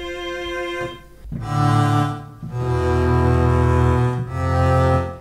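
Sampled orchestral strings in Logic Pro X played one note at a time: a held mid-range bowed note in the first second, then three low, deep bowed notes in the cello and double-bass range, each lasting about a second.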